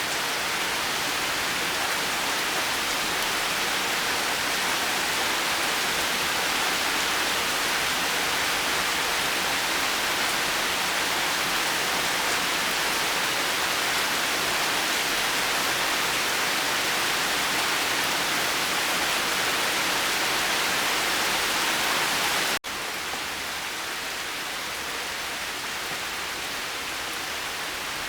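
Steady, dense rain falling as an even hiss. About 22 seconds in, the sound breaks off abruptly and carries on slightly quieter and thinner: an edit splice joining two rain recordings.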